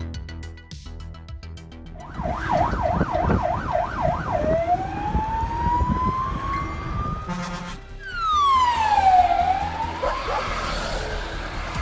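Fire engine sirens with engine rumble beneath: a fast warble about four times a second, then a slow rising wail. After a break about eight seconds in, a siren sweeps steeply down and climbs again. Background music plays for the first two seconds.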